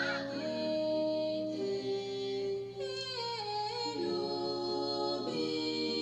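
A cappella singing: several voices holding sustained chords, with a downward slide in pitch about three seconds in.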